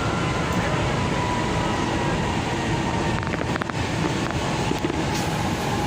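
Metro train running, heard from inside the carriage: a steady rumble with a faint whine that slowly falls in pitch, and a few short clicks about three seconds in.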